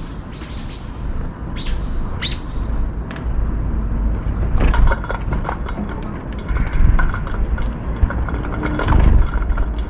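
Strong wind buffeting the microphone: a deep, gusting rumble that rises and falls. There are a few short high chirps about two seconds in, and scattered light ticks and chirps through the second half.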